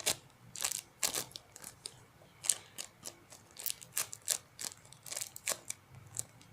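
A homemade squishy being squeezed and handled, its wrapping crinkling in a string of irregular sharp crackles, two or three a second.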